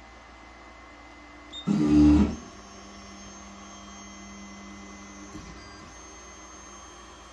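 Anycubic 3D printer's stepper motors homing: about two seconds in, a loud grinding burst of under a second, then a steady motor hum for about three seconds that cuts off with a click. The grinding is the fault the owner suspects comes from a failing height-axis motor or end stop.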